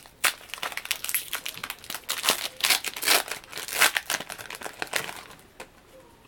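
Foil Yu-Gi-Oh! booster pack wrapper crinkling and tearing as it is opened: a dense run of crackles that dies away about five and a half seconds in.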